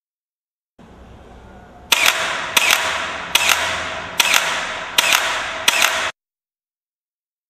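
M4-style carbine firing six single shots about three-quarters of a second apart, each a sharp crack with a ringing tail. The sound cuts off abruptly after the last shot.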